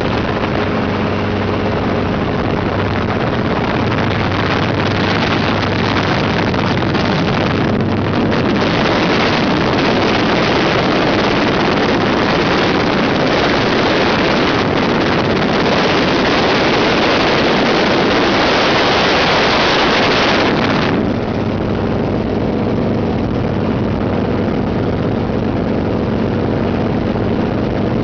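Helicopter in flight: a steady engine and rotor hum under loud wind rush from the airstream hitting the microphone. The wind rush cuts off suddenly about three-quarters of the way through, leaving the helicopter's hum plainer.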